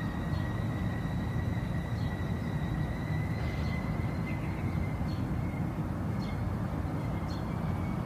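Train rumbling along the rails, steady in loudness, with a thin high ringing tone over the rumble that slowly rises a little in pitch and faint clicks now and then.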